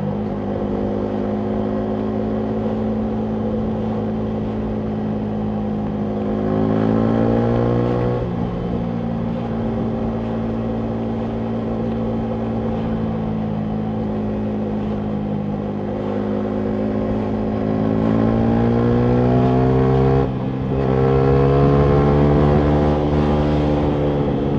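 Yamaha MT125's single-cylinder 125 cc four-stroke engine running through a full Akrapovic exhaust under way. It holds a steady note, then rises in pitch under acceleration about six seconds in and drops at a gear change. It pulls up again from about seventeen seconds, with a brief break at a shift near twenty seconds, and falls in pitch near the end as the throttle closes.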